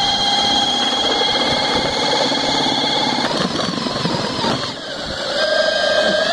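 Makita 18 V cordless drill driving a 12x10 APC boat propeller, its motor and gears whining steadily at full speed over rushing water. About three seconds in, the whine breaks up and drops away for a moment. It then picks up again at a lower pitch and climbs back toward full speed near the end.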